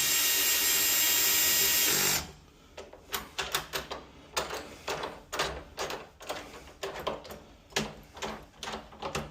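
A cordless drill-driver runs steadily for about two seconds, then stops suddenly. After it, a string of irregular light clicks and taps from hardware being handled.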